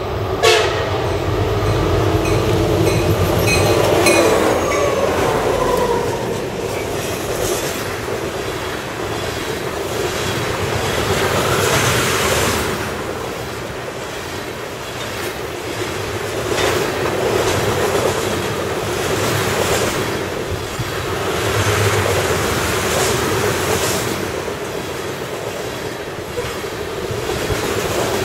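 A diesel freight locomotive's horn sounds as it approaches and passes, its pitch dropping at about five seconds. A long string of tank cars then rolls by, with steady rumbling and repeated clickety-clack of wheels over rail joints.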